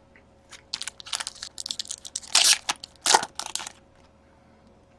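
Trading cards handled and slid against one another: a run of short, scratchy rustles lasting about three seconds, then it stops.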